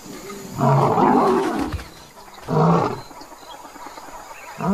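Lion calling: a long, rough roar about half a second in, a shorter one a little later, and a third starting near the end.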